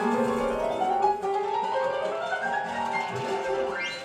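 Music led by piano, with runs of notes climbing upward, ending in a quick rising sweep just before the end.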